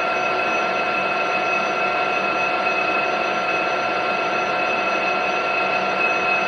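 Metal lathe running steadily, its motor and gearing giving a whine of several steady tones over a hiss, while it takes a light dry finishing cut.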